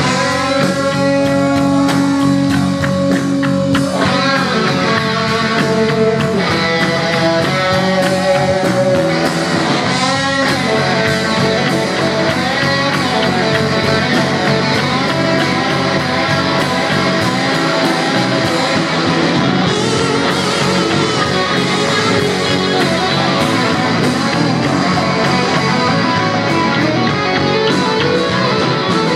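Live rock band playing loud, with guitar, bass guitar and drums.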